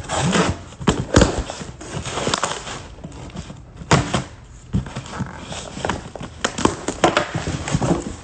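Cardboard shipping box being cut and pulled open by gloved hands: a scatter of sharp knocks and clicks with rustling and scraping of cardboard.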